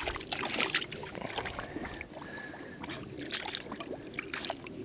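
A dog wading and pawing in shallow water among rocks, hunting a fish: irregular small splashes and sloshing.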